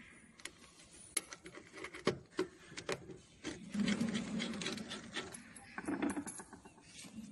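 Round metal multi-pin cable plugs being pushed onto panel sockets and their collars twisted tight: scattered sharp clicks and metal scraping, with louder rubbing and handling noise through the middle.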